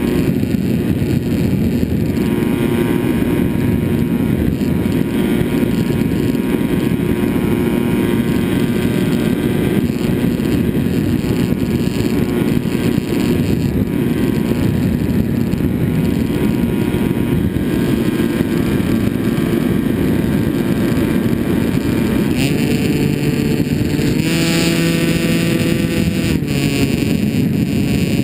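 Finwing Penguin RC plane's electric motor and propeller running steadily in flight, with air rushing over the onboard microphone. About three-quarters of the way through, the motor pitch steps up twice as the throttle is opened, then drops back near the end.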